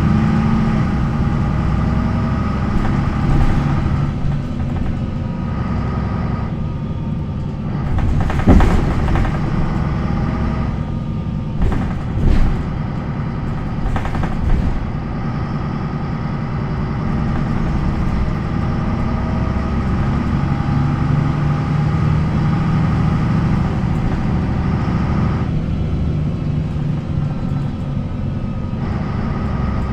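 MAN NL 263 bus's D28 diesel engine running, its pitch shifting several times, with several sharp knocks and rattles about a third of the way in.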